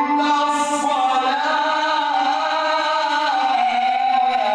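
A male reciter chanting the Quran in melodic tajweed style, drawing out one long unbroken note that steps slowly up and down in pitch.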